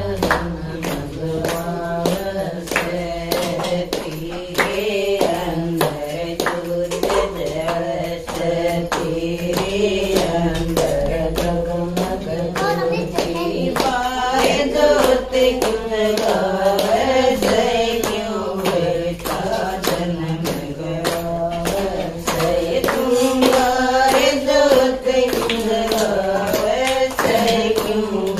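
A group of women singing a Haryanvi bhajan (Hindu devotional song) together, keeping time with steady rhythmic hand claps.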